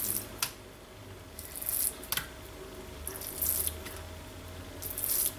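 Thin slices of raw pork loin are lifted and laid one by one onto a pile on a plastic cutting board as they are peppered. Several short, soft wet slaps and rustles, with a faint steady hum underneath.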